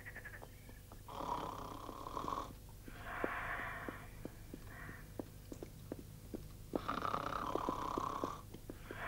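A man snoring in his sleep: long, noisy breaths that come about every two to three seconds, with faint scattered clicks between them.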